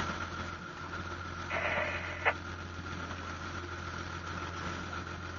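A boat's engine running steadily under way, a low even hum with hiss. About two seconds in, a brief burst of radio hiss ends in a sharp click.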